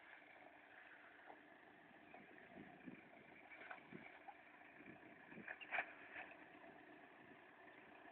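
Near silence: faint background hiss with a few soft scattered ticks, a sharper one near six seconds in.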